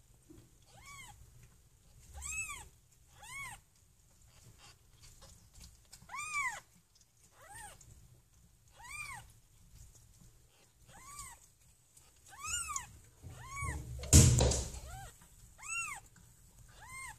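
Two-day-old kittens mewing: repeated short, thin, high cries, each rising and falling in pitch, roughly one a second at irregular intervals. A loud knock about fourteen seconds in.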